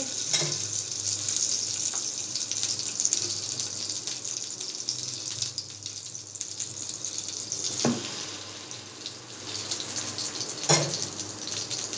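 Ghee sizzling in a hot non-stick frying pan, a steady hiss, with two short knocks in the second half as an egg-dipped bread slice goes into the pan.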